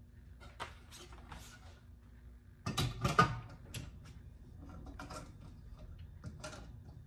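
A metal screen-printing frame being handled and set into the clamp of a screen-printing press: a short clatter of knocks about three seconds in, the loudest sound, among lighter clicks and rustles.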